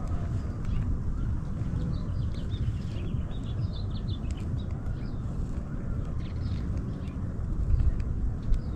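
Birds chirping in short calls, busiest a few seconds in, over a steady low rumble of wind on the microphone.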